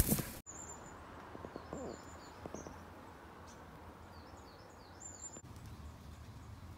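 A short burst of rustling cuts off abruptly, then quiet outdoor ambience with small birds chirping: short falling chirps and a thin high whistle. The birdsong stops abruptly about five seconds in.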